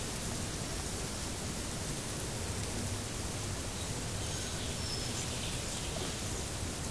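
Steady rustling hiss of a wood-ant mound: thousands of ants crawling over its dry needles and twigs.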